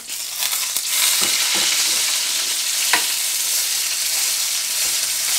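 Steak sizzling in a hot pan after being turned, a steady high hiss that swells as the seared filet goes back down on its raw side. A sharp click about three seconds in.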